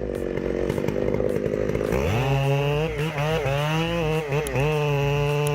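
Chainsaw engine running: a rough buzz for about two seconds, then it revs up and holds at high revs, its pitch dipping briefly several times.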